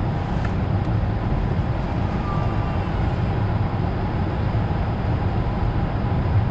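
Steady low rumble and hiss of an Airbus A220-300 heard from inside its cabin.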